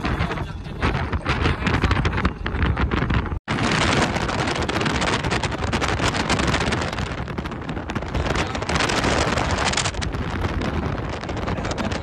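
Wind buffeting the microphone in the open back of a moving pickup truck, over the truck's road and engine noise. The sound drops out for an instant about three and a half seconds in.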